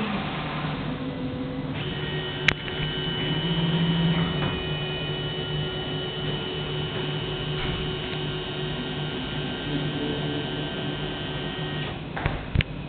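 ISEL ICP 4030 CNC milling machine: its spindle winds down at the very start, then the stepper-driven axes move the head with a steady whine of several high tones over a hum. A sharp click comes about two and a half seconds in, and a couple of knocks near the end.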